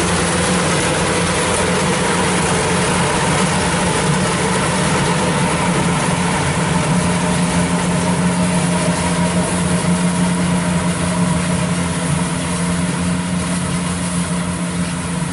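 Kubota DC-95 combine harvester's diesel engine running steadily under load while the machine cuts and threshes rice, a constant engine hum with the clatter of the harvesting works.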